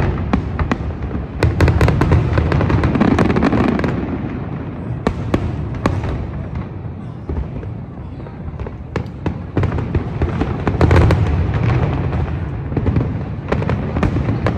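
Aerial fireworks going off in rapid succession, sharp bangs and crackles mixed with rumbling booms. Heavy volleys come about two seconds in and again around eleven seconds.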